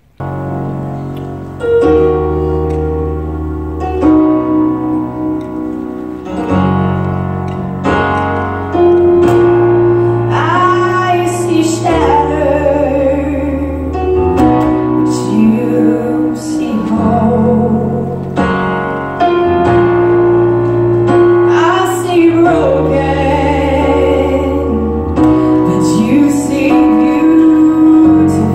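A woman singing a slow song into a microphone, accompanied by an electronic keyboard playing held chords with low bass notes that change every couple of seconds.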